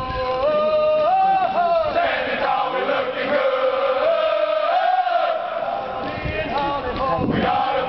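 Marching cadence chanted by a group of men's voices, with long held notes that rise and fall in pitch.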